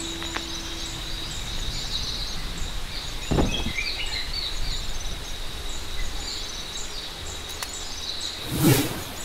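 Outdoor ambience of many small birds chirping over a steady high insect drone, with a brief noise about three seconds in and a louder one near the end.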